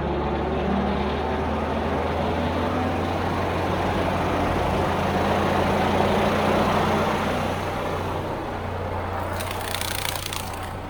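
Takeuchi TL8 skid steer's diesel engine running steadily under load, working a 72-inch skid-steer brush cutter; the machine swells a little louder midway, and a scatter of rattling, crackling noise comes in near the end.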